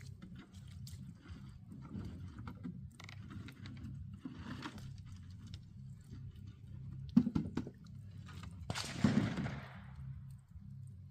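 A plastic water jug being handled and searched for bullet fragments: scattered small knocks and rustles, a sharp knock about seven seconds in and a short rushing noise just after, over a steady low hum.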